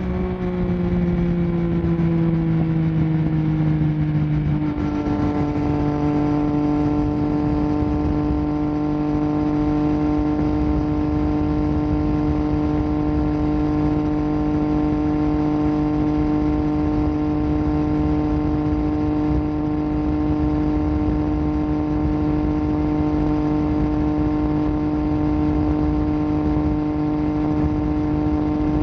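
Yamaha Tracer 9 GT's inline-three engine running through an unbaffled Akrapovic full exhaust, its pitch dropping over the first five seconds and then holding steady.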